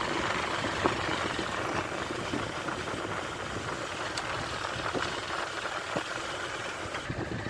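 Small motorcycle running along a rough dirt road, with a few sharp knocks and rattles from the bumps.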